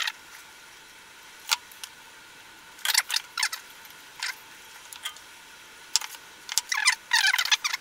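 Sharp clicks and light clatter from handling a circuit board and a soldering iron on a workbench, with a burst of high, warbling chirps near the end.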